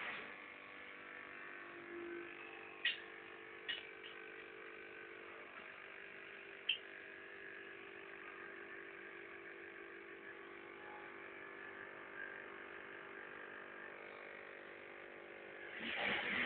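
Steady hum of a small electric motor, with three sharp clicks about three, four and seven seconds in.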